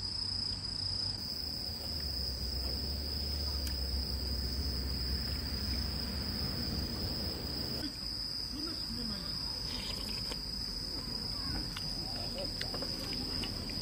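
Crickets chirping in a steady high-pitched trill, with a few faint clinks of a spoon against camping pots.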